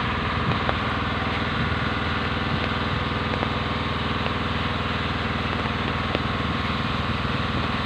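A small engine running steadily at constant speed, with an even rapid pulse and no change in pitch.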